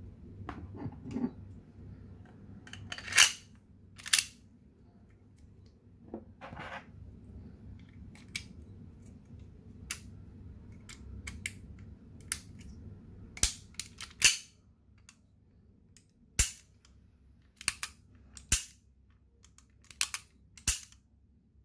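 Colt 1911 Government Model CO2 BB pistol being reassembled by hand: a string of sharp, irregularly spaced clicks and clacks, a dozen or more, as the slide with its recoil spring is fitted onto the frame and worked.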